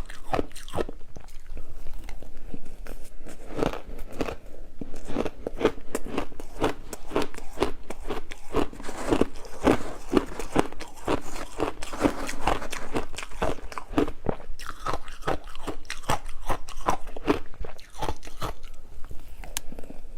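Close-up crunching of ice being bitten and chewed, with rapid, irregular crunches several times a second.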